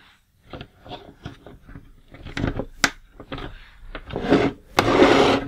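Hard plastic clicks and knocks as yellow missiles are pressed onto the tread pods of a GI Joe Destro's Dominator toy vehicle. Near the end the plastic toy rubs and scrapes as it is handled on the table.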